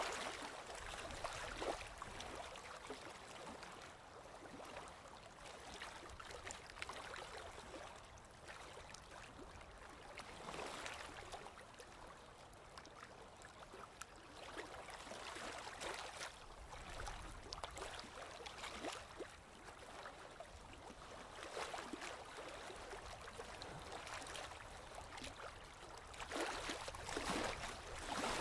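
Stream water lapping and gurgling, a continuous watery rush that swells and fades irregularly and is loudest near the end.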